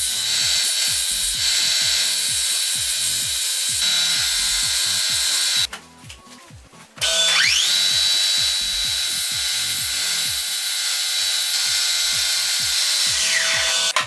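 Electric power tool running at speed, its high whine steady; it stops briefly, then spins back up with a rising whine about seven seconds in, runs steadily, and winds down just before the end.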